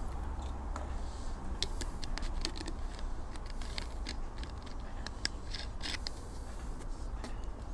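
Plastic water bottle being handled and its cap twisted, giving a run of small sharp clicks and crackles over a steady low rumble.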